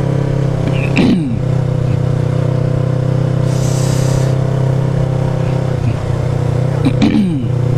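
Motorcycle engine running steadily under way in traffic, a continuous low hum. Two brief falling sweeps come about a second in and again near the end, and a short hiss sounds around the middle.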